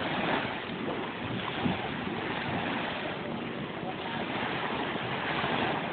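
Steady wash of small waves in shallow sea water, with wind buffeting the microphone and faint voices underneath.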